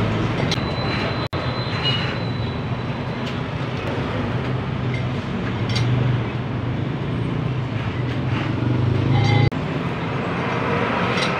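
The Mitsubishi Lancer's 4G15 four-cylinder carburettor engine running steadily.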